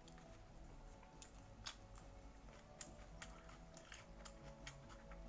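Near silence: faint background music with a few scattered soft clicks.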